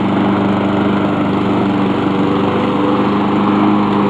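Honda walk-behind lawn mower's small four-stroke engine running steadily at a constant speed, freshly rebuilt and sounding smooth.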